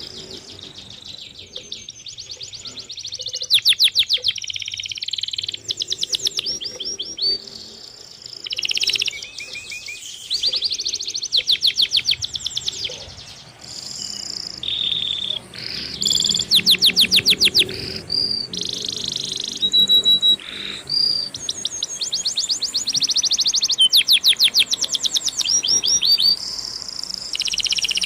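Several birds calling and singing at once, a dense chorus of overlapping rapid trills, chirps and short whistled notes.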